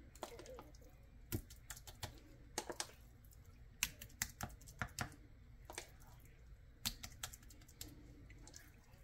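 Spoon and metal pot knocking against ceramic bowls as thick grits are spooned out: faint, irregular sharp clicks and taps, some close together.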